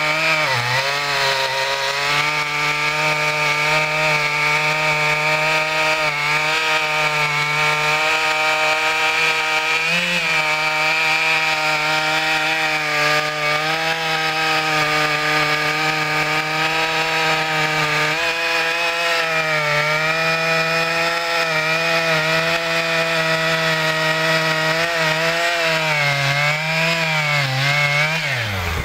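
Brand-new Stihl MS 881 Magnum, a 121.6 cc two-stroke chainsaw, running at full throttle and loaded down steadily as it crosscuts a large log, as part of breaking in the engine. The engine note dips briefly about a second in. It wavers up and down in the last couple of seconds and falls away at the very end.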